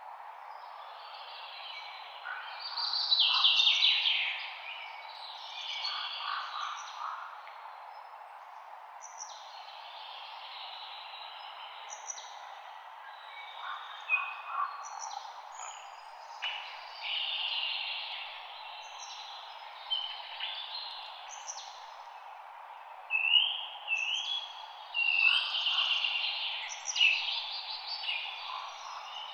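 Several songbirds singing and calling in overlapping chirps and trilled phrases, over a steady background hiss.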